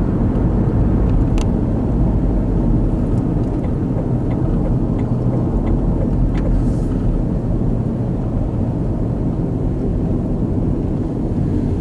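Steady road and engine noise inside a car moving at highway speed, with a short run of faint light ticks around the middle.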